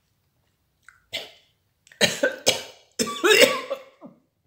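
A man coughing in a fit: one cough about a second in, then three quick coughs and a longer cough with the voice in it. It is the coughing of a throat burnt by super-hot chili pepper.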